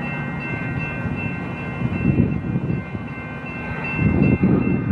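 Diesel locomotive of a Metra commuter train approaching, its low engine and rail rumble swelling about two seconds in and again louder near the end. Steady high-pitched ringing tones run over it throughout.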